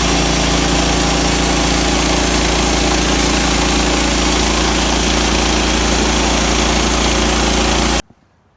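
Sawmill engine running steadily and loudly while milling lumber; it cuts off suddenly near the end.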